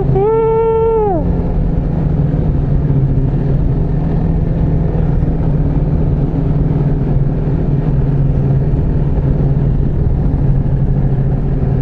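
Ski-Doo snowmobile engine running steadily at speed, heard from the rider's seat as an even low drone. A brief held high tone sounds over it in the first second, then falls away.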